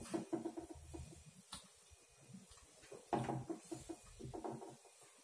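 Scattered soft knocks and clicks as pieces of rice-and-glutinous-rice dough are laid by hand into a steel wok of cold oil. There is no sizzle, because the oil has not yet been heated.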